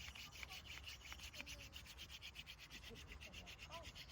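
Wooden hand drill spindle twirled between the palms, its tip scraping in the hearth board notch in a fast, even rhythm of several strokes a second, the friction that builds up hot dust toward an ember.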